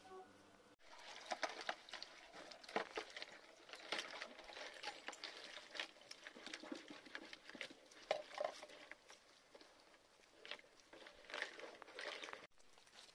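Puppies eating from a bowl: a steady run of irregular wet clicks and crackles from lapping and chewing, along with a plastic scoop dipping into a bucket.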